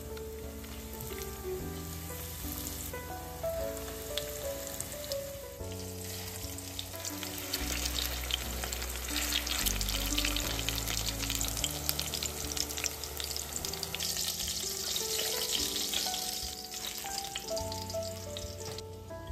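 Breaded tofu and chicken menchi katsu patties shallow-frying in oil: a steady crackling sizzle that grows louder from about seven seconds in and dies away near the end, over background music.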